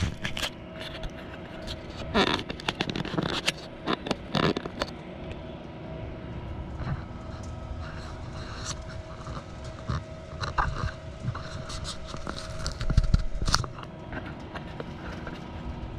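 The blower fan of a Char-Griller 980 gravity-fed charcoal grill runs steadily, pushing air into the charcoal to bring the fire up to a 400-degree set point. A few brief knocks and clatters are heard a couple of seconds in and again near the end.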